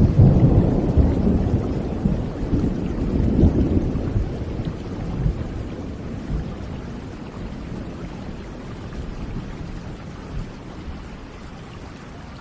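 Rolling thunder over steady rain: a loud, low rumble at the start swells again about three seconds in, then slowly dies away, leaving the even hiss of rain.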